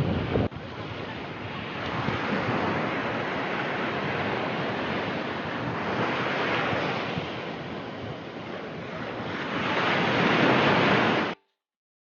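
Sea waves washing onto a sandy beach, swelling and easing in three surges, with a little wind on the microphone; the sound cuts off abruptly near the end.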